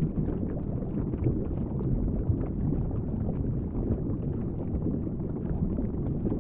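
Underwater ambience: a steady low rumble of water noise with faint crackling throughout.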